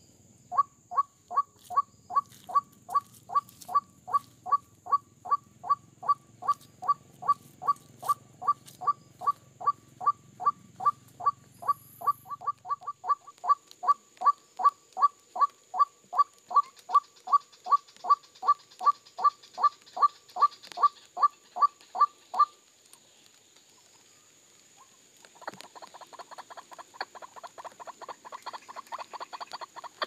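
White-breasted waterhen calling: a long run of loud, evenly spaced notes, about three or four a second, that stops about 22 seconds in. After a short pause a faster, quieter run of notes starts up and goes on to the end.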